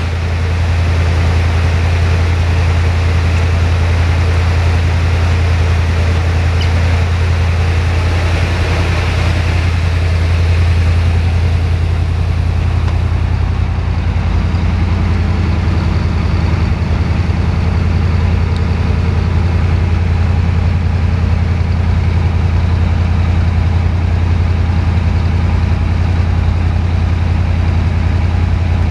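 1982 Corvette's carbureted 350 V8 idling steadily, with a deep, even low hum.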